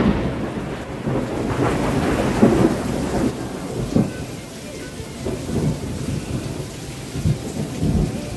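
Thunder rumbling and dying down after a close strike, with a few more low claps about four seconds in and near the end, over the steady hiss of heavy rain.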